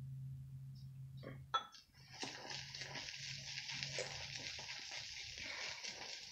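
Synthetic shaving brush whipping Derby lavender shave cream into lather in a ceramic bowl: a wet, frothy swishing from about two seconds in. A low steady hum and a single knock come before it.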